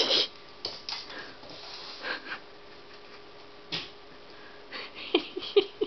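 A cat playing with a string toy on a laminate floor: scattered short scuffs and rustles, more of them and sharper near the end, over a faint steady hum.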